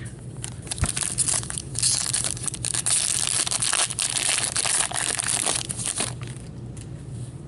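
Foil trading-card pack wrapper being torn open and crinkled in gloved hands: a dense crackling and tearing that lasts about five seconds, then dies down near the end.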